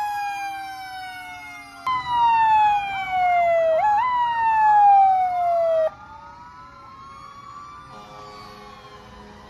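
Fire truck sirens wailing as the apparatus pass. One siren slides slowly down in pitch, then a louder one comes in about two seconds in, slides down, jumps back up near four seconds and slides down again. It stops abruptly about six seconds in, leaving quieter vehicle noise.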